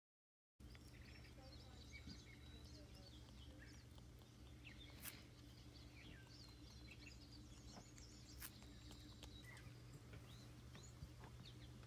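Faint, short, high chirps from small animals, scattered and irregular, over a steady low hum, with a few soft clicks. The sound begins after a brief dead silence.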